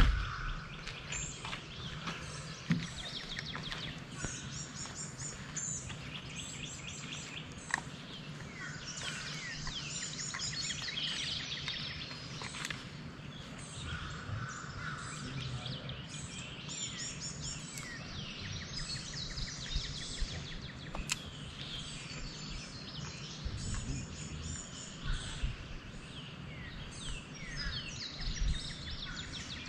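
Several wild songbirds chirping and singing, with repeated high trills and short calls throughout, over a low steady rumble; a couple of sharp clicks stand out.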